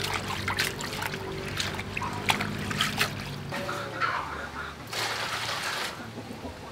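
Water splashing and trickling as greens are washed by hand in a metal bowl of water, then water scooped and poured from a clay jar with a plastic dipper, the pouring densest about four to six seconds in.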